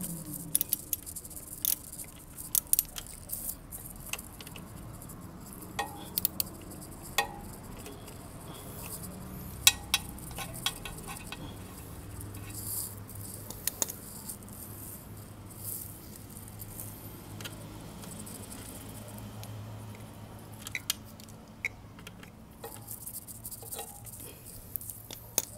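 Irregular light metallic clicks and clinks of a 10 mm wrench working the bolts on a motorcycle's radiator cover as they are undone.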